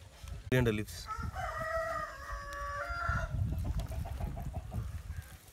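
A rooster crowing once: a sharp opening note about half a second in, then a long held call that ends a little after three seconds in.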